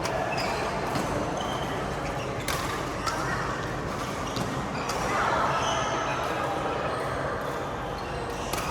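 Badminton rally: a few sharp cracks of rackets hitting a shuttlecock, over a steady background of indistinct voices.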